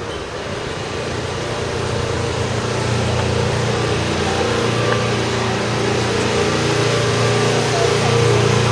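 An engine running steadily with a low hum, growing gradually louder, over general street noise.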